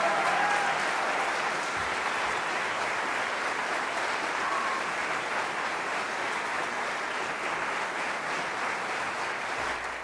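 Theatre audience applauding steadily, while the orchestra's last note dies away in the first second; the applause fades out at the very end.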